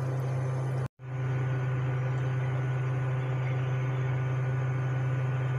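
Steady low electrical hum of a running kitchen appliance's motor, cutting out for a moment about a second in.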